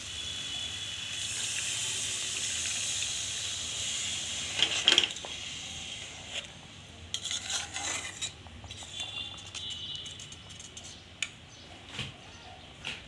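Water added to a hot kadai of thick tomato chutney hisses and sizzles steadily for the first several seconds. The hiss then dies down, and a metal spatula scrapes and clicks against the pan as the watery chutney is stirred.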